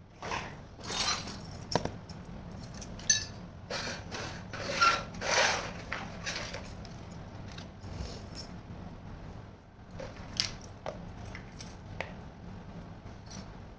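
Small toy kitchen pieces being handled: irregular rubbing, scraping and light clinks, busiest in the first half and then dropping to a few scattered clicks.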